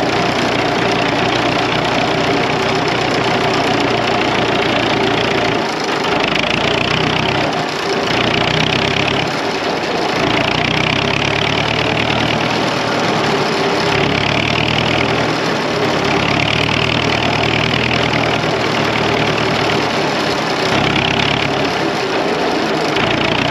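Vintage tractor engine running steadily while the tractor drives across snow, heard close up from the seat. A higher hiss swells and fades every second or two over the engine.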